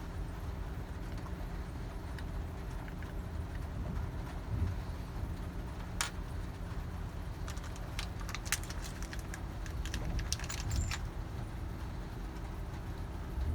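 Small metal items being handled: a single sharp click, then a run of light clicks and jingles for a few seconds. A steady low hum runs underneath.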